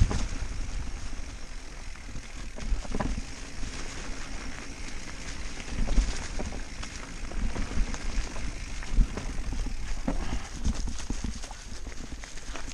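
Mountain bike ridden fast down a dirt and leaf-covered singletrack: a steady rumble of tyres and wind on the microphone, broken by irregular knocks and rattles every couple of seconds as the bike hits bumps.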